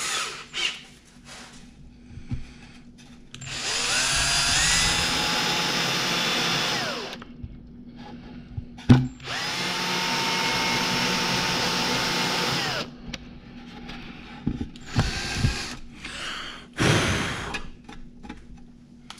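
Power drill with a 1/4-inch Forstner bit boring holes deeper, in two runs of about three and a half seconds each. Each run spins up with a rising whine and winds down at the end. A sharp knock comes between the two runs, and a few short bursts follow near the end.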